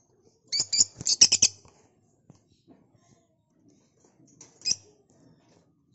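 Peach-faced lovebird giving a rapid run of about six shrill chirps about half a second in, then another short chirp a few seconds later.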